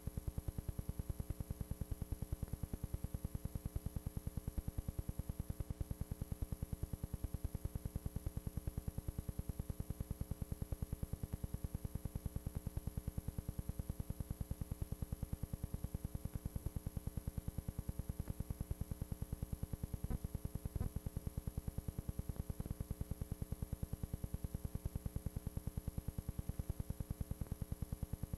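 A steady electrical buzz with a fast, even pulse and a constant hum, unchanging throughout.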